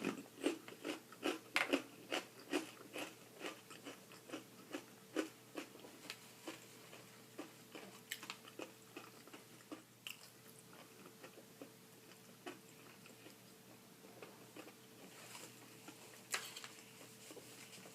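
A person chewing and biting fried chicken drumstick close to the microphone, with wet crunchy chews about two a second for the first few seconds, then slower and more scattered.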